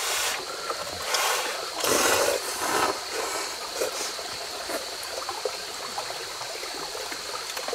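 Instant cup noodles being slurped, about four loud slurps in the first three seconds, then quieter eating noises, over the steady rush of a stream.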